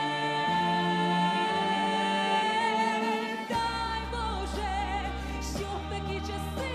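A song with backing music: a woman's singing voice holds a long note, then the accompaniment plays on, with a deep bass coming in about halfway through.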